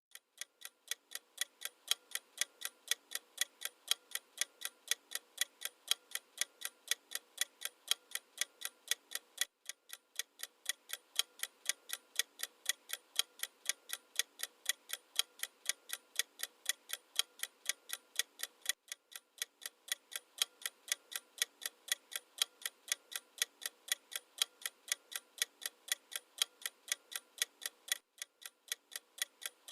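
Clock-ticking sound effect for a countdown timer: fast, even ticks, with a brief break about every nine seconds where the loop restarts.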